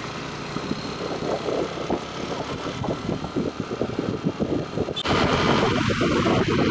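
Motorcycle running as it rides along the road, with rough, uneven noise on the microphone that jumps suddenly louder about five seconds in.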